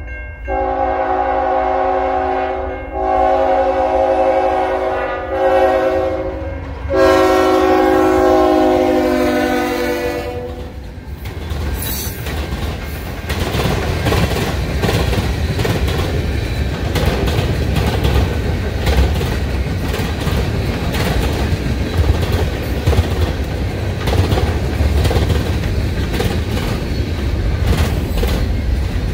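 Air horn of a CN GE ES44AC freight locomotive sounding four blasts, long, long, short, long: the grade-crossing signal. Then the train rolls past with a steady rumble and wheel clatter from the freight cars on the rails.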